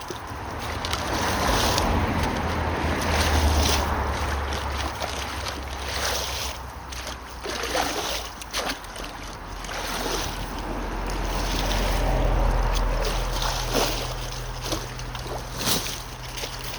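Water rushing and splashing through a partly cleared culvert clog, with wind buffeting the microphone in a low rumble that swells and fades, and scattered knocks and scrapes from the digging.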